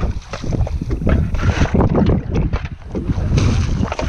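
Wind buffeting the microphone with water slapping and sloshing against the hull of a small open fishing boat on a rough sea.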